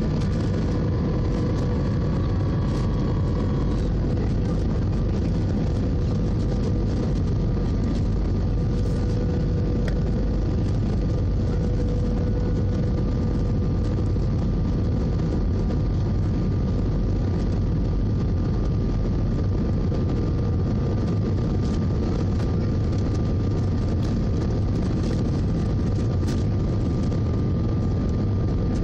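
Steady cabin noise inside an Airbus A319-111 on its descent: the low rumble of its CFM56 engines and the rush of air, with a faint steady hum over it.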